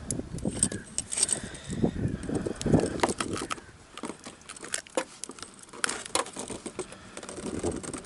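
Irregular clicking, clinking and rustling as jig fishing tackle (lure, hook and metal sinker) is handled.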